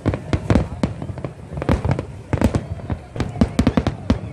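Fireworks display: a rapid, irregular barrage of bursting shells and cracking bangs, several a second, with no pause.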